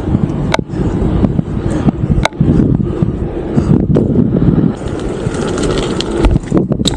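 BMX bike rolling over pavement: a steady low tyre rumble, broken by several sharp knocks and clatters from the bike, the last ones near the end.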